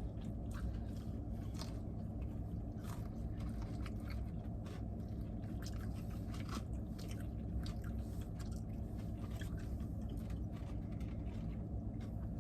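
Chicken wings being eaten close to the microphone: chewing and biting, with scattered short crunchy clicks over a steady low hum.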